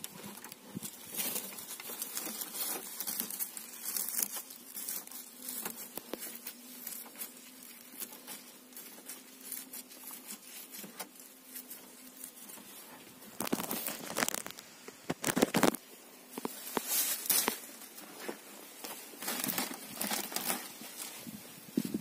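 Scattered rustling, crinkling and light tapping from a woven plastic sack and a wire bird cage being handled, louder for a few seconds just past the middle.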